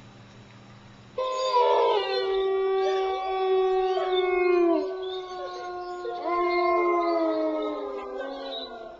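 Several dogs howling together, starting about a second in, in long overlapping howls that slowly fall in pitch, with another howl rising in later on.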